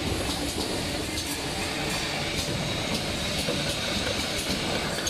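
Automatic servo screw-capping machine running: a steady mechanical hum with sharp clicks about twice a second as it grips and turns caps onto bottles.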